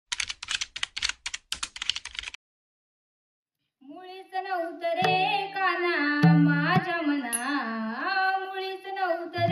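Typing sound effect: a quick run of keyboard clicks for about two seconds, then a short silence. About four seconds in, a woman starts singing a traditional Marathi gavlan into a microphone, with musical accompaniment.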